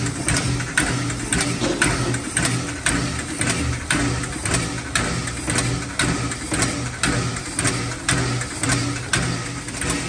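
Steam-driven air pump on an ALCO 0-6-0 steam locomotive working under steam, chugging in an even rhythm of about two strokes a second over a low hum, with a hiss of escaping steam.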